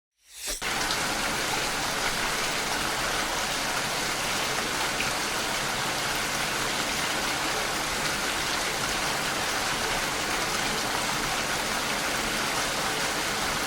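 Steady heavy rain with running water, an even hiss that fades in at the start and fades out at the end.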